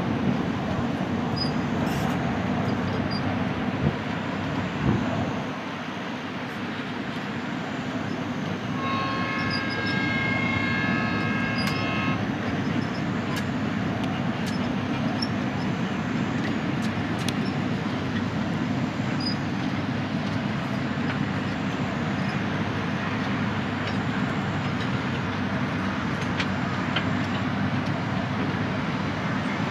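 Loaded sugarcane bins of a narrow-gauge cane train rolling steadily past: a continuous rumble of wheels on rail with occasional light clicks. About nine seconds in, a high tone of several pitches is held for about three seconds.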